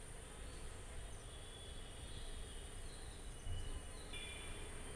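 Quiet kitchen room tone: a steady low hum with a few faint, short high chirps.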